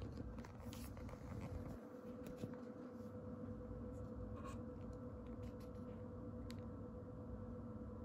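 Faint handling noise: scattered light clicks and rubs as an ALPA 10d camera is picked up and turned in the hand, over a steady low hum.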